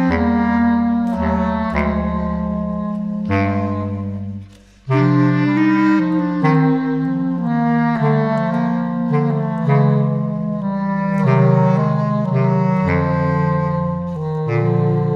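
A bass clarinet choir, several bass clarinet parts layered in close harmony over a low bass clarinet line, playing a jazz ballad arrangement. The chords are held and shift from one to the next. The music drops out briefly about four and a half seconds in, then the next phrase begins.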